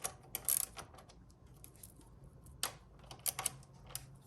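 Scattered light clicks and taps of hand tools and small metal brake parts being handled: a cluster in the first second and a few more about three seconds in.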